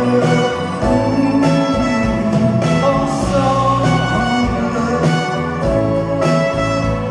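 Live band playing a French chanson, the music running steadily with no sung words.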